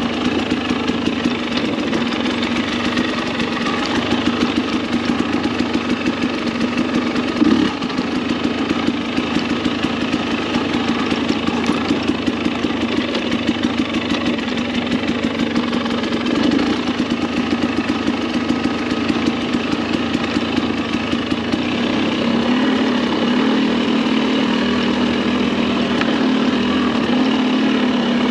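Dirt bike engine running at a low, fairly even engine speed, with one brief knock about seven and a half seconds in.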